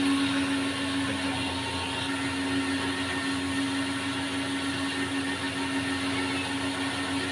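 Cotton candy machine running, its battery-driven motor spinning the sugar head with a steady hum on one unchanging pitch.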